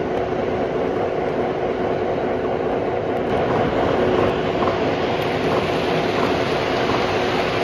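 O gauge model passenger train running past on three-rail track: a steady rolling rumble of wheels on the rails, with a steady hum under it.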